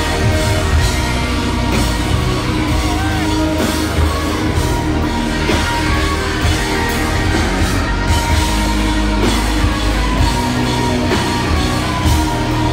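A rock band playing live and loud through a concert PA, with drums, guitar and keyboards, heard from the crowd.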